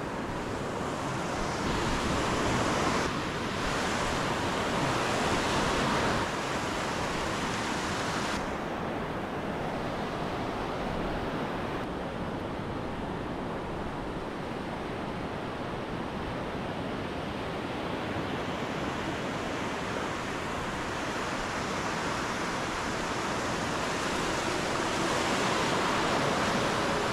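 Ocean surf washing around the feet in shallow water, a steady rush of breaking and receding waves. It swells louder a few seconds in and again near the end.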